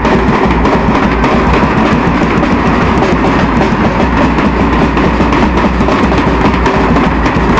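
Indian wedding brass band playing loudly, led by a big bass drum beaten right by the microphone, with snare drums and brass horns in a dense, driving rhythm.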